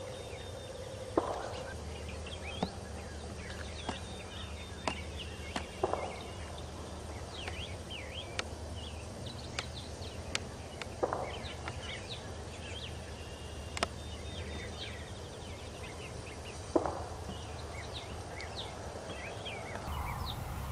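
Wild turkey gobbling four times, a loud rattling call about every five seconds. Small songbird chirps go on in the background.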